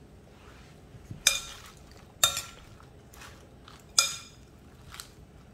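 Metal serving spoon and fork tossing a salad in a glass bowl: three sharp ringing clinks as the utensils strike the glass, about a second in, a second later, and near the end, with fainter soft rustling of leaves between.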